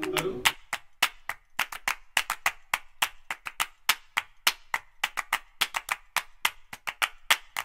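Background music of rapid, uneven hand claps: a dry clapping beat with no melody.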